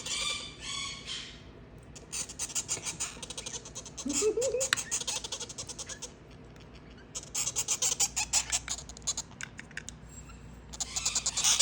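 Quaker parrot chicks, about ten days old, giving food-begging calls while being hand-fed by syringe: bursts of fast, high chattering squeaks that come and go several times. The chicks keep begging even when full.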